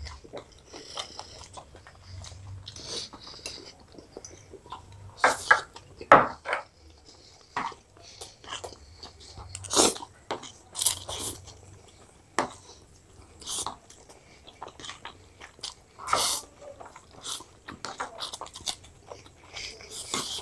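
Two people eating: slurping chowmein noodles and chewing fried chicken lollipops, with irregular wet smacks and clicks at uneven intervals.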